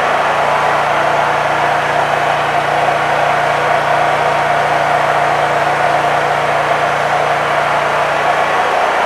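Honda EU3000is inverter generator running steadily while powering an electric heater at full load. A low hum under the engine note drops away shortly before the end.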